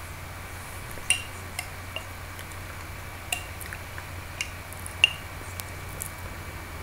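A small metal gadget being handled on a desk: scattered light clicks and clinks, some with a short ring. The sharpest come about a second in and about five seconds in.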